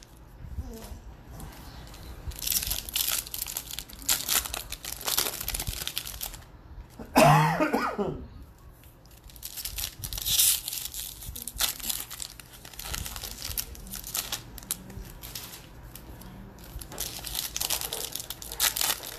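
Foil-lined trading card pack wrappers being torn open and crinkled by hand, in a run of short rustling bursts. About seven seconds in, a brief, loud sound from a person's voice, like a cough, stands out above the rustling.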